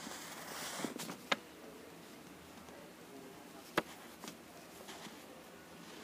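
Wooden pencil scratching faintly on paper while drawing, with a few short sharp clicks, two of them standing out about a second in and near four seconds.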